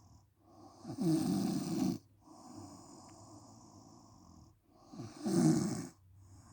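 A sleeping woman snoring: two loud, rasping snores about four seconds apart, each lasting about a second, with quieter breathing in between.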